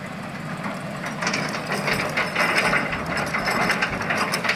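Heavy diesel equipment running: a concrete mixer truck with an excavator beside it, a steady low engine drone under a rough hiss and clatter that grows a little louder after about a second.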